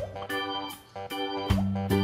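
Background music: a tune of pitched notes over a bass line, briefly dropping away near the middle.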